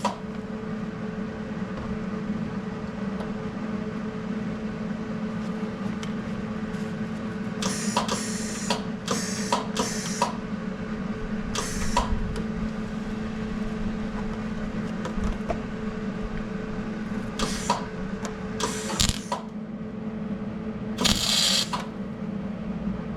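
MIG welder humming steadily, with about eight short bursts of arc crackle as the welds are struck: a cluster about a third of the way in and more near the end. It is a novice's attempt at welding a bolt, with the gas mixture and voltage probably set wrong.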